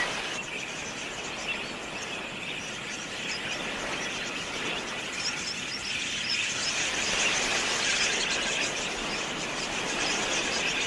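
A flock of wild budgerigars chirping and chattering: many short, high chirps overlapping, growing denser about halfway through.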